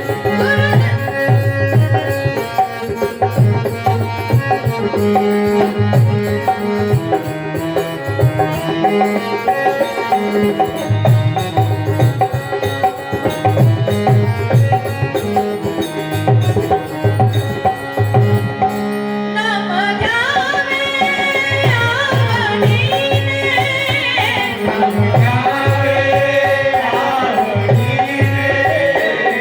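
Bhajan accompaniment: dholak drums beat a steady rhythm under sustained harmonium chords. About twenty seconds in, a higher, wavering melody line comes in over them.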